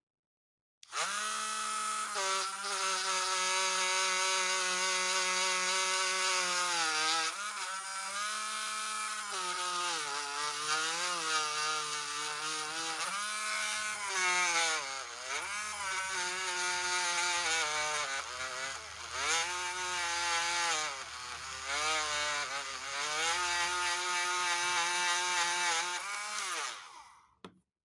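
Small handheld rotary tool spinning a felt polishing wheel against a stethoscope's metal chestpiece: a steady high motor whine that sags in pitch several times as the wheel is pressed onto the metal, then picks up again. It switches on about a second in and winds down just before the end.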